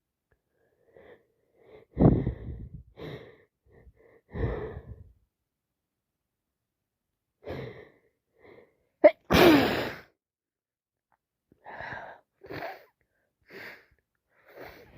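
A woman sneezing several times in a row from a cold with allergies: loud bursts about two and four seconds in, the loudest sneeze a little past halfway, then a few shorter, quieter breaths and sniffs.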